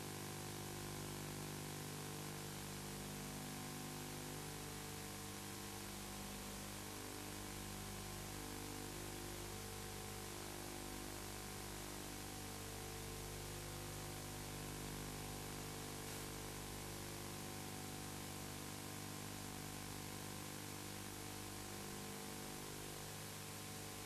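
Steady hiss with a low, unchanging hum: the noise floor of an old analog videotape recording, with no hoofbeats or other distinct sounds standing out.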